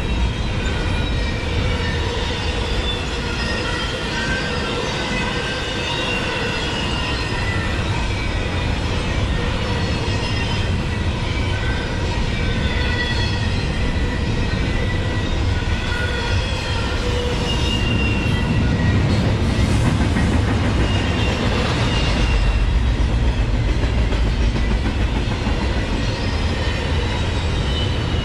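Loaded double-stack intermodal well cars of a freight train rolling past, a steady rumble of steel wheels on rail. Thin, high wheel squeals come and go throughout, and the low rumble grows louder near the end.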